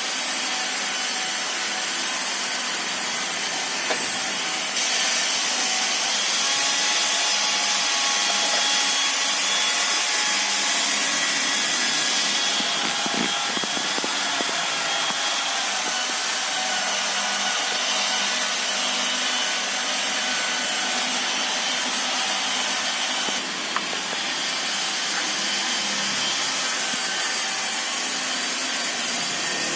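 A motor-driven machine running steadily, a high-pitched whine over a hiss, its pitch stepping up and down a few times.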